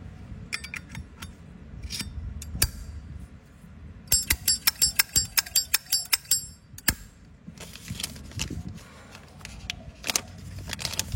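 Metal clicks and clinks of a Zippo-style lighter being handled. About four seconds in, a quick run of a dozen or so ringing metallic clicks, with single clicks before and after.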